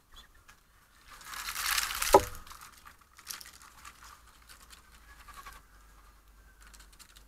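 A sudden rush of rustling and scrabbling as a squirrel and birds bolt in alarm, peaking with one sharp knock about two seconds in, then scattered light rustles and ticks.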